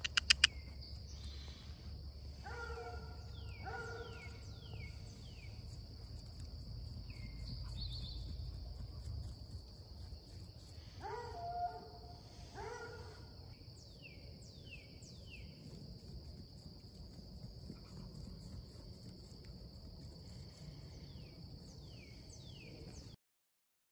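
Steady high drone of insects over a pasture, with a few sharp clicks right at the start. Two pairs of short animal cries come a couple of seconds in and again about eleven seconds in.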